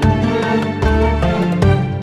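Intro music with a steady beat, bass and pitched instruments, in a Middle Eastern style.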